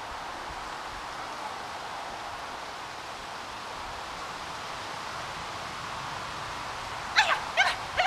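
Young Gordon setter giving short, high yelps that fall quickly in pitch, three in quick succession near the end, over a steady outdoor background hiss.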